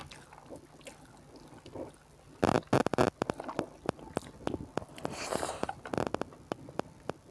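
Close-miked eating sounds of a person chewing rice with egg curry: small wet mouth clicks at first, then a loud run of smacking clicks about two and a half seconds in, with more chewing smacks through the middle.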